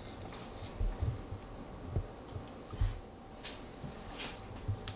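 Quiet kitchen handling: a few dull, low knocks and faint clicks as a cookie scoop is worked against a ceramic mixing bowl and a ball of batter is released onto a silicone-lined baking tray.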